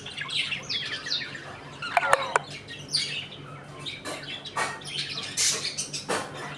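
A flock of budgerigars chirping and chattering, many short overlapping calls, with a sharp click about two seconds in.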